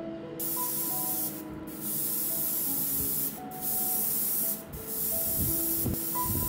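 Airbrush spraying gray surfacer primer in a run of bursts: the hiss starts about half a second in and breaks off briefly four times.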